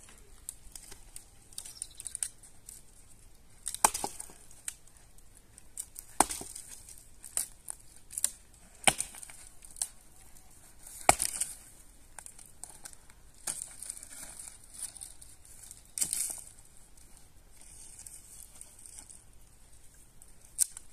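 Dry firewood and brushwood being broken and handled: sharp cracks at uneven intervals, with rustling and crackling in between.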